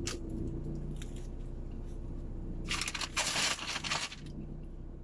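Crackling, crunching noise of a large crusty flatbread being torn and handled, loudest for about a second around the middle, with a few small clicks early on. Underneath runs a low steady hum.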